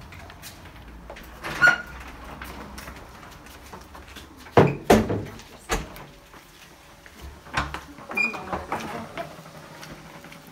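A door being handled and a scatter of knocks and bumps as a dog bed is carried through a doorway, with two brief squeaks, one early and one about three-quarters of the way in.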